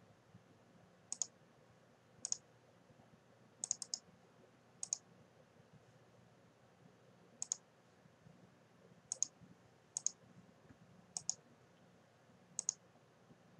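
Computer mouse button clicks: about ten sharp clicks at irregular intervals, several heard as a quick pair of press and release, over a faint steady low hum.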